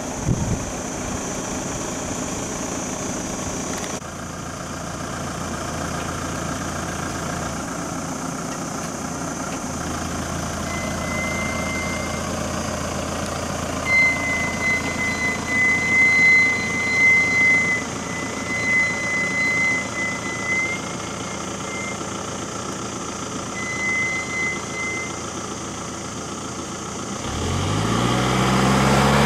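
Vehicle engines idling steadily. A high, steady tone sounds on and off through the middle, and near the end an engine rises in pitch and grows louder as it speeds up.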